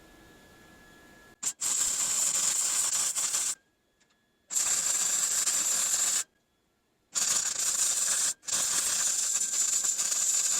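Small gas-shielded MIG welder arc crackling and hissing on the thick metal of a Ford F250 clutch arm, in four runs with short pauses between. The first run starts about a second and a half in.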